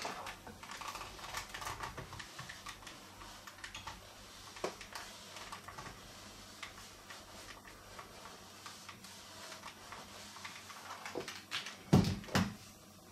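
Clothes iron pressed and slid over a paper towel laid on a cardboard backcard: soft rustling, scraping and small irregular taps. Two sharp knocks near the end.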